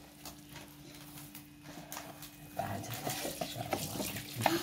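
Hands kneading soft, sticky dough in a metal bowl: irregular soft squishing and tapping, busier in the second half, over a steady faint hum.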